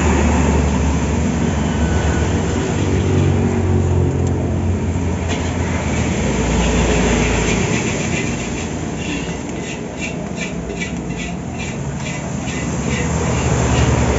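A loud steady low mechanical rumble, with a quick run of rhythmic scraping or clicking, several strokes a second, from about nine to twelve seconds in.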